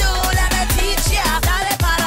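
Soca dance music from a DJ mix: a steady beat with heavy bass under a sung vocal line.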